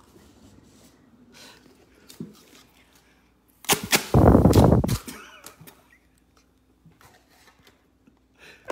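Two paper party blowers blown at once about four seconds in: a loud blast lasting just over a second.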